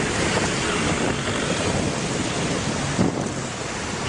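Loud, steady rushing noise, with a brief bump about three seconds in.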